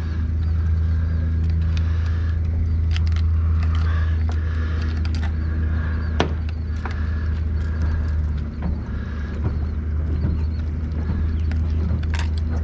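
A steady low mechanical hum, with light clicks and knocks scattered through it.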